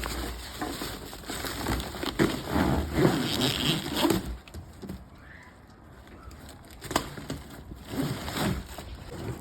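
Irregular clicks, knocks and rustling of a Numatic vacuum cleaner hose being handled, in two busy stretches with a quieter spell in the middle.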